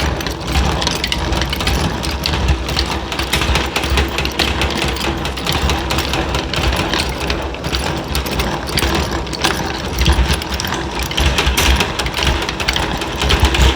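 Honey extractor spinning frames of honey, a loud steady mechanical rattle and whir from the machine.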